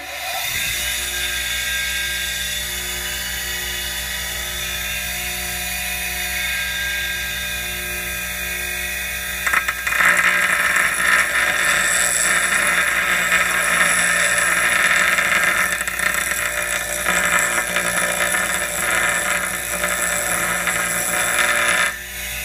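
A Central Machinery 8-inch bench grinder starts and runs with a steady motor hum. About ten seconds in, a glazed metal-bond diamond grinding segment is pressed against the abrasive wheel, adding a loud rough grinding hiss for about twelve seconds. This is the segment being dressed, wearing back the bond to expose the diamonds, and the hiss stops near the end while the grinder keeps running.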